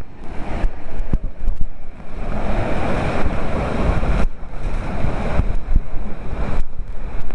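Waterfall pouring close by, a loud steady rush of falling water, with wind buffeting the microphone in gusts.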